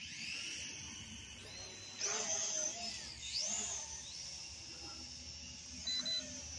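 SHRC H6 quadcopter's propellers spinning up with a high whine. The whine gets louder as the drone lifts off about two seconds in, swoops up in pitch once, then settles to a steady hover. A short beep comes near the end.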